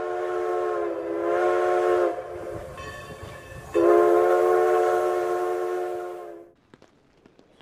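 Steam locomotive chime whistle sounding a chord of several tones in two long blasts: the first cuts off with a drop in pitch about two seconds in, and after a short break the second sets in sharply with a slight upward bend about four seconds in and fades away after six seconds.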